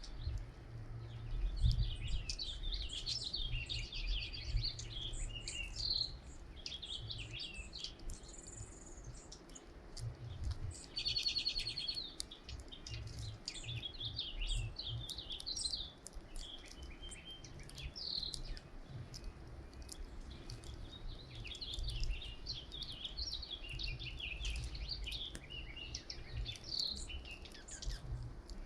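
Many small songbirds chirping and calling over one another in short, overlapping chirps and trills, busiest at the start and again toward the end, over a low rumble.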